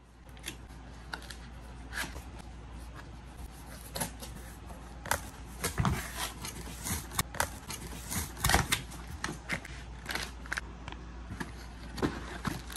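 A cardboard box and its packing being handled during unboxing: irregular rustling, scraping and tapping as the flaps are opened and a moulded pulp insert is lifted out.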